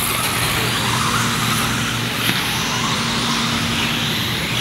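Team Losi Mini-T 1/18-scale electric RC trucks racing on a dirt track: a steady mix of small electric motors whining and tyres skittering on dirt, with faint rising and falling motor pitch as they accelerate and brake, over a steady low hum.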